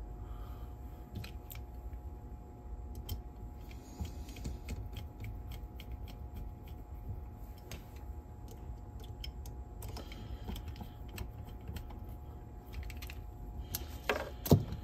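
Small parts and tools handled while a cassette deck's mechanism is reassembled: scattered light clicks and taps over a steady low hum, with a sharper knock near the end.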